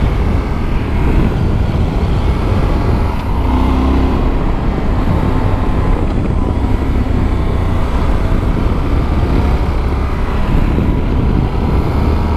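Yamaha Super Ténéré 1200's parallel-twin engine pulling the bike through a run of curves, heard under heavy wind rush on the rider's helmet microphone. The engine note comes through more plainly about four seconds in.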